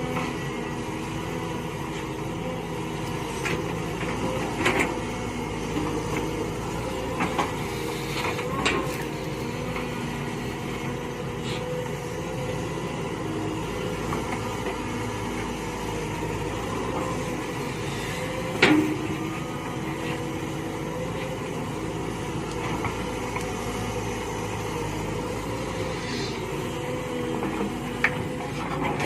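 Mini excavator engine running steadily under work, with a few sharp knocks or clanks about five, nine and nineteen seconds in.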